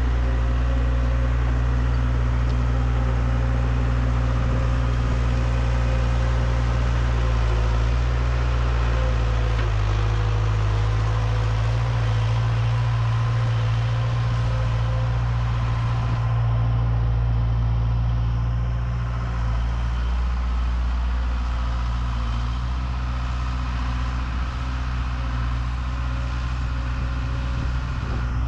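John Deere 270 skid steer's diesel engine running steadily as the tracked machine drives away, a little quieter in the second half.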